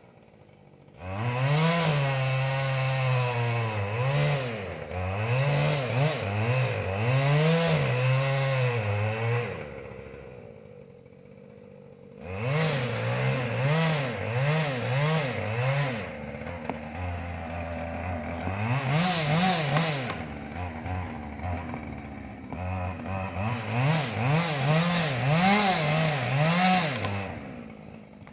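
Husqvarna two-stroke chainsaw running at high revs, its pitch repeatedly rising and dipping, in three long runs that drop back to a quieter idle between them.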